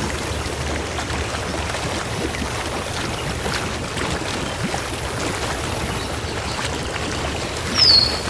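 Steady rushing ambience of sea waves and water. Near the end, a short high chirp falls in pitch.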